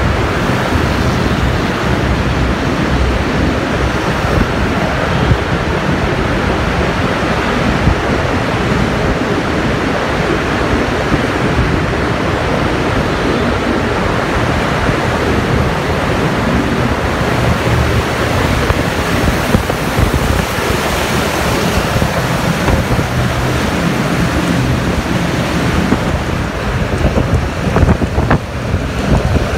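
Steady loud wind rush buffeting the microphone, mixed with road rumble, while riding a motor scooter at about 50 km/h; it turns more uneven and gusty near the end.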